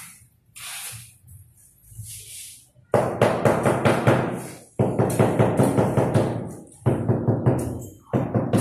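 Rapid runs of knocks, about four or five a second, with brief pauses between runs: a rubber mallet tapping a floor tile to bed it into the mortar. They start about three seconds in, after some quieter scraping sounds.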